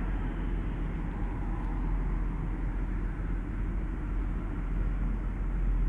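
Steady low rumble of vehicle noise, with no distinct events.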